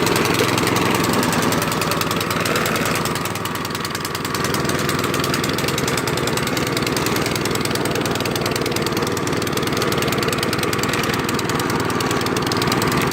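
Gas snowblower engine running steadily under way in its first drive speed. The owner puts its poor sound down to the choke switch not being set, and the machine is low on gas.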